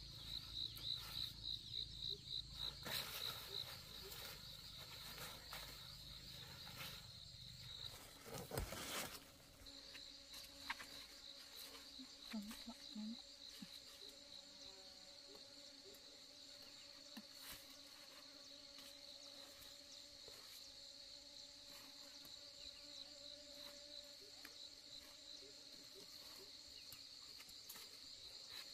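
Insects trilling in a faint, steady, high-pitched pulsing drone, broken about eight seconds in by a brief knock, after which the trill resumes.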